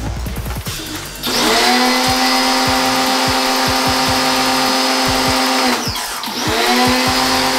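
Pressure washer spraying water into an aircon unit. Its pump motor whines up as the trigger is squeezed and runs steadily under the hiss of the spray for about four seconds, then winds down. A second later it starts again.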